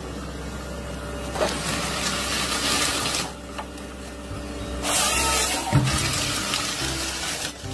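Tracked forestry harvester working a log: a steady low diesel drone under loud rushing machine noise from the engine and hydraulics. The noise eases for about a second and a half in the middle, then comes back louder.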